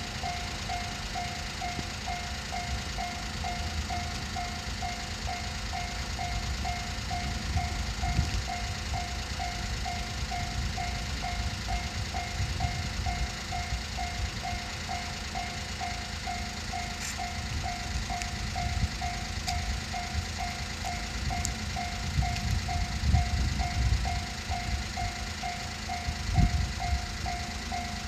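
Japanese railroad crossing alarm ringing its steady "kan-kan" tone, about two strikes a second, with a low rumble building toward the end.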